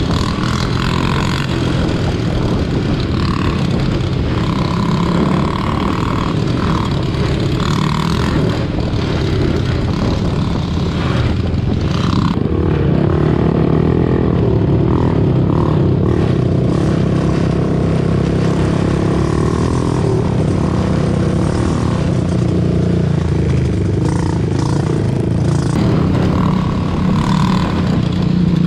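ATV engine running while riding, with a continuous engine note that settles into a steadier, slightly louder drone about twelve seconds in.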